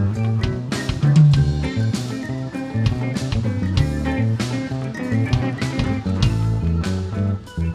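A blues band playing an instrumental passage, with electric guitar, bass and drum kit keeping a steady beat.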